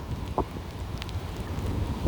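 Gusty wind buffeting the microphone with an uneven low rumble and a few sharper gusts.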